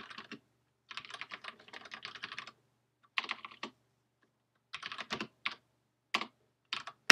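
Typing on a computer keyboard: several quick runs of keystrokes with short pauses between them, thinning out to a few single key presses near the end.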